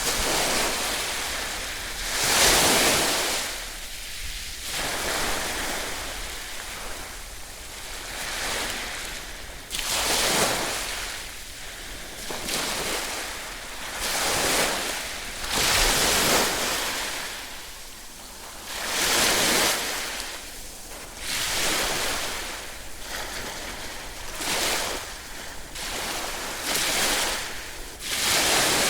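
Ocean waves breaking, one surge of surf every two to four seconds that swells and fades away; the loudest comes about two seconds in.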